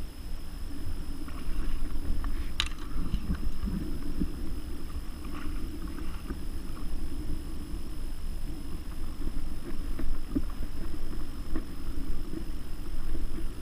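Water slapping and knocking against a kayak hull, over a steady low rumble, with one sharp click about two and a half seconds in.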